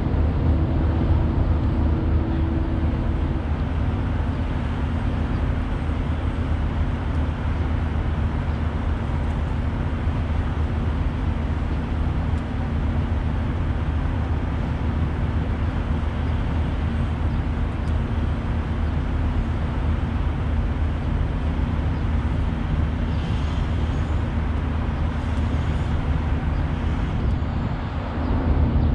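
Steady low rumble of vehicle and traffic noise, with a constant deep hum like an idling engine and no distinct events.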